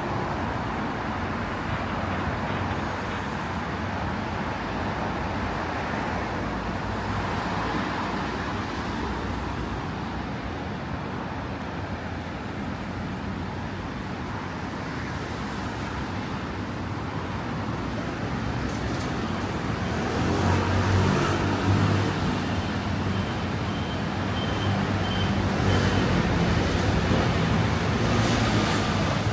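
City street traffic: cars and buses running past on the road in a steady wash of noise. A heavier vehicle's engine rumble grows louder about twenty seconds in.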